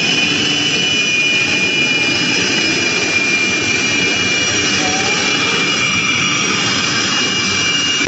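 Jet engine of a jet-powered van running steadily: a loud, continuous rushing noise with a high whine over it.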